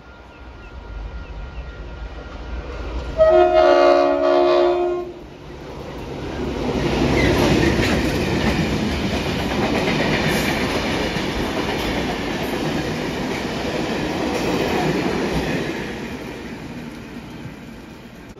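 NSW 42 class streamliner diesel locomotives sound a multi-note horn chord for about two seconds as they approach. They then race through at speed, engines running, followed by their carriages clattering over the rail joints, the noise swelling and then fading away.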